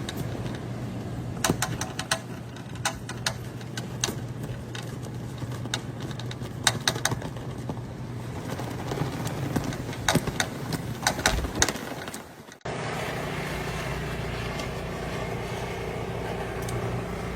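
A vehicle engine running steadily, with many scattered sharp clicks over it. About twelve and a half seconds in the sound cuts to a second, steadier engine hum.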